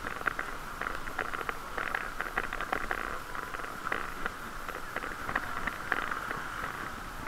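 Bicycle in motion: a steady hiss with many quick, irregular ticks and rattles.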